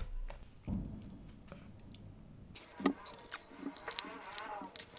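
A plate set down on a wooden table with a soft thump, then a metal ladle clinking and scraping against an aluminium pressure cooker as mutton curry is spooned out onto the plate, in a run of sharp metallic clinks from about halfway through.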